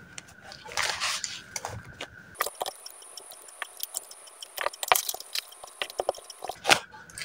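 Plastic pens and highlighters being gathered up and set down on a spiral notebook: a run of small clicks and clatters, with paper rustling.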